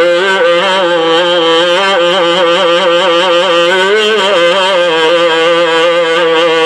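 A man chanting an Iraqi Shia mourning lament (a Husayni elegy), drawing out one long melismatic vowel with wavering, ornamented turns of pitch and no break.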